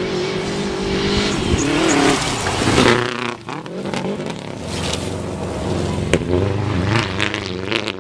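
A rally car's engine at high revs, growing louder as the car approaches and loudest as it passes about three seconds in. The pitch then drops, and the revs rise and fall again as it pulls away with tyre noise on loose gravel.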